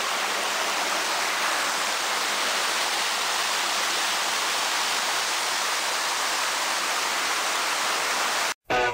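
Shallow, fast-flowing stream rushing over rocks, a steady hiss of running water that cuts off suddenly near the end.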